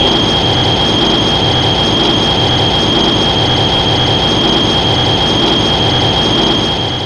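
Shin Godzilla fourth-form sound effect: a loud, steady rushing screech with a piercing high whine held through it, starting abruptly and fading away at the end.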